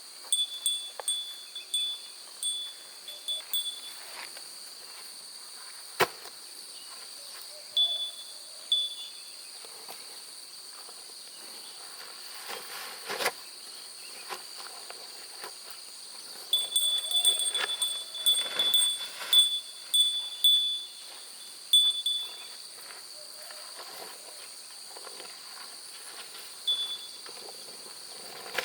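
Outdoor nature sound: a steady high insect drone, with runs of short, high chirping calls at the start and again about two-thirds of the way through, and a single sharp click about six seconds in.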